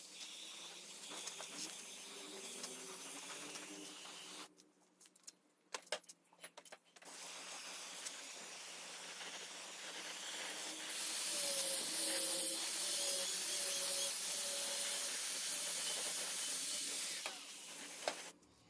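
Compressed-air spray gun hissing in bursts as it sprays paint. The hiss is loudest over several seconds in the second half, after a short break with clicks.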